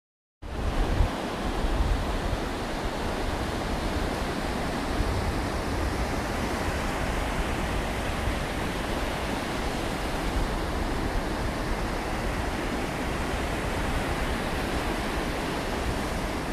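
Steady outdoor noise of wind and distant surf on an open beach, with gusts of wind buffeting the microphone in the low end. It starts a moment in, after a brief silence.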